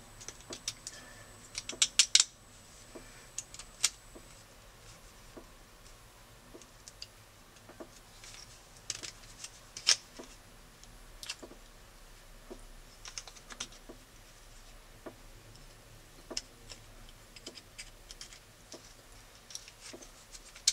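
Scattered small clicks and light scratches from hands handling and marking a small plastic camera mount part, with a quick run of sharper clicks about two seconds in and another sharp click near the middle.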